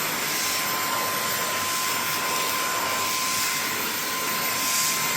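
Vacuum cleaner running steadily, a constant rushing whine with a thin steady tone in it, as the nozzle is run over a cat's fur.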